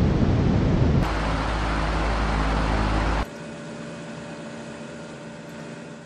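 A MOICO sleep sound machine plays recorded electric-fan noise and switches tracks twice. It starts with a loud, steady fan rush, changes about a second in to a fan noise with a low hum under it, and changes again about three seconds in to a quieter, smoother fan whir with faint steady tones. The sound fades out at the end.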